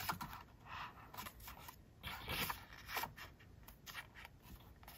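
Pages of a glossy photo book being turned by hand: a series of short papery rustles and swishes, one every half second to a second.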